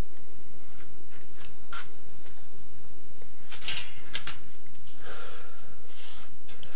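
A rag rubbing over a grey plastic sewer pipe socket, heard as a few short scuffing wipes about three and a half and five seconds in, with light handling clicks before them.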